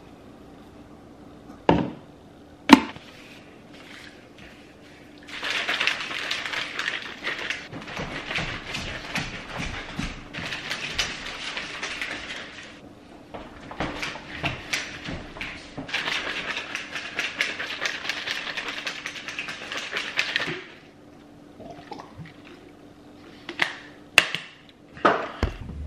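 Two sharp knocks, then water running into a plastic shaker bottle of pre-workout in two long spells with a short break between. A few light clicks come near the end.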